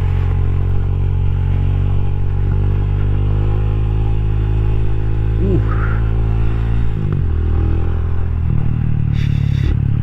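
Rusi Classic 250's single-cylinder LX166FMM four-stroke engine running steadily under way, its note changing about seven seconds in.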